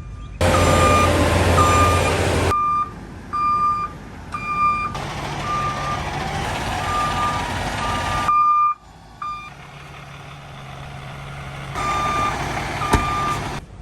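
Reversing alarm on a heavy vehicle beeping at one steady pitch, roughly once a second, over the noise of the vehicle running.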